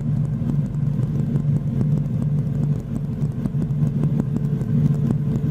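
Cabri G2 helicopter's piston engine and rotor idling on the ground during shutdown, a steady low drone that pulses evenly, with a constant hum above it. It is heard through the headset intercom. The engine is settling to a stable idle before the rotor clutch is disengaged.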